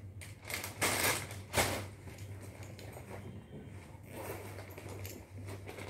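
Plastic snack packets crinkling and rustling as they are handled and rummaged out of a bag, with a few louder crackles in the first two seconds, then quieter rustling.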